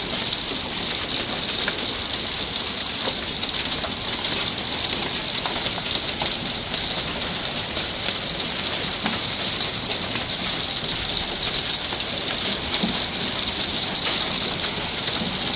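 Hailstorm with rain: a steady, dense hiss of falling rain and hail, peppered with many small sharp ticks of popcorn-sized hailstones striking and bouncing.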